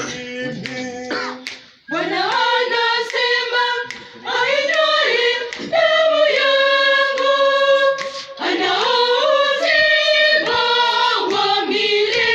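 Choir singing a Swahili hymn, voices holding long chords, with a short break about two seconds in.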